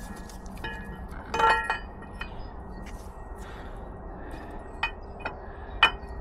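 New inlet camshaft of a DAF MX-11 diesel being lowered into the cylinder head, steel clinking and ringing against the head and bearing caps. A cluster of bright clinks comes about a second and a half in, then a few lighter ones, with one sharp clink near the end.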